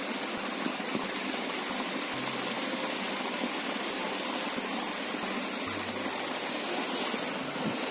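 Steady rushing of water, with a short, louder high hiss about seven seconds in.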